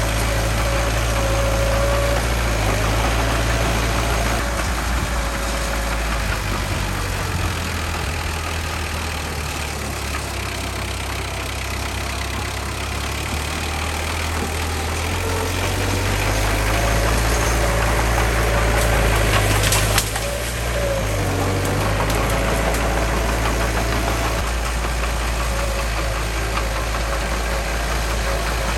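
Heavy equipment diesel engine running steadily, easing off for several seconds mid-way and then picking up again, with one sharp knock about twenty seconds in.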